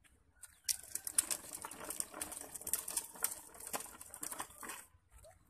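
Handling noise on a phone's microphone: a dense crackling rustle of fine clicks that starts about half a second in and stops abruptly near the end.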